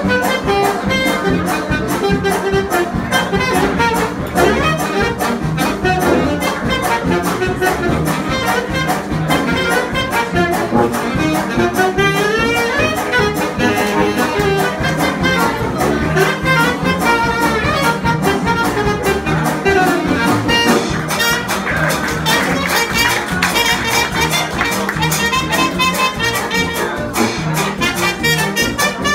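Live jazz band playing an up-tempo tune: saxophones and brass over a steady beat from the rhythm section.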